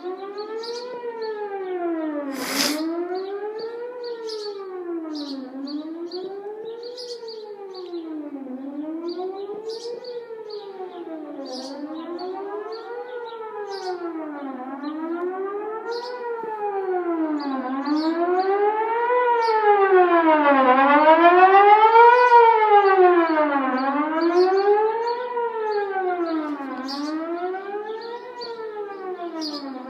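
Outdoor tornado warning siren sounding its test, a wailing tone that rises and falls about every two and a half seconds. It swells loudest about two thirds of the way through, then eases off again. A single sharp click comes about three seconds in.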